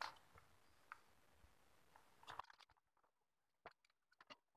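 Near silence: a few faint clicks and rustles of hands handling a circuit board, over a low hiss that drops away abruptly about two and a half seconds in.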